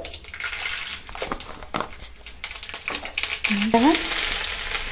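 Mustard and cumin seeds crackling and popping in hot oil in an aluminium kadhai. About three and a half seconds in, chopped onions go into the oil and set off a loud, steady sizzle.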